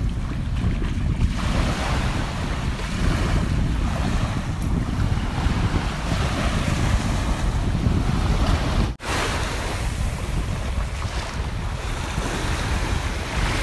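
Wind buffeting the microphone over the wash of small waves in shallow sea water, with a brief dropout about nine seconds in.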